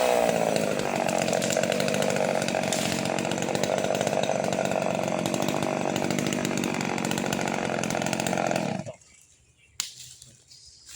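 Chainsaw cutting into wood, its engine pitch dropping as the chain bites and then held lower under load for about nine seconds. It stops abruptly, and a single sharp knock follows about a second later.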